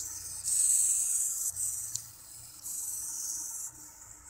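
Small hobby servo whirring in three hiss-like bursts of about a second each, with short breaks between them, over a faint steady hum.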